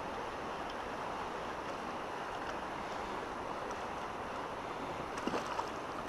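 Steady rush of a shallow, stony river flowing past, with a few small knocks near the end.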